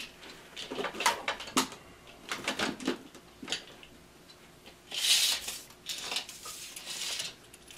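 Clicks and small metallic clinks as tools are handled at the floor, then a steel tape measure's blade pulled out with a rattling zip about five seconds in, followed by a weaker rasp of the tape.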